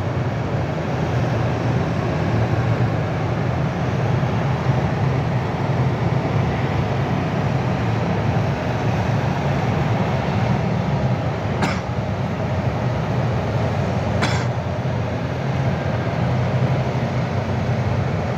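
Column of tracked self-propelled howitzers driving past: a steady deep engine rumble with the clatter of tracks on the road, and two short sharp clicks in the middle.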